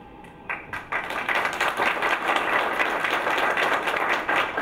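Audience applauding: a few single claps about half a second in, then steady applause from about a second in.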